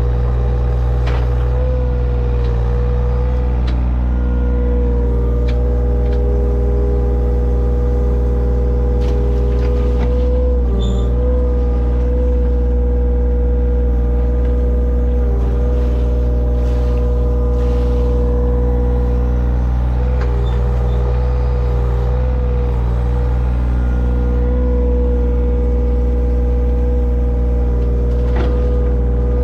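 Engine of digging machinery running steadily with a constant whine, its pitch dipping slightly now and then as it takes load.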